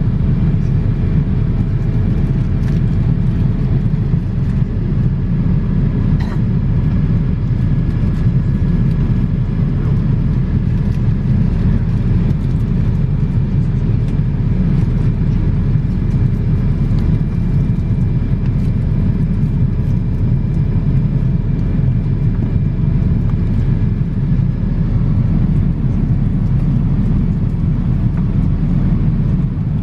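Steady cabin noise inside a Boeing 787-8 airliner: an even, low rumble with a faint click about six seconds in.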